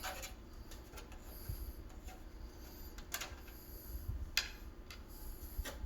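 A few light, separate clicks and taps from handling a computer case's side panel and its screws.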